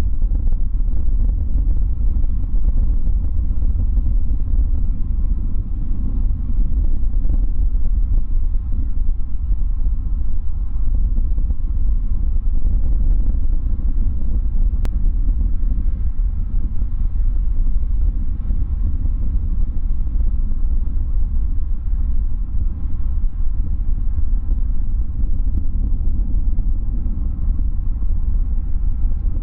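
Steady low rumble of a Boeing 787-9 airliner's jet engines on final approach, heard from a distance.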